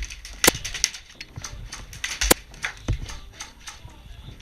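Airsoft guns firing in irregular single shots: sharp cracks, thickest in the first second, with the loudest about half a second in and another just after two seconds.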